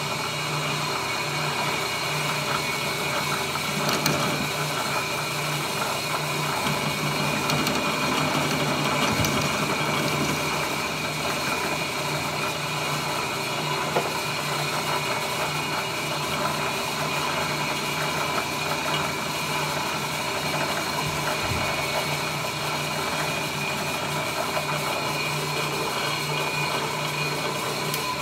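Drill press motor running steadily while an end mill cuts a bite-plate pocket into a metal saxophone mouthpiece, with a few light clicks.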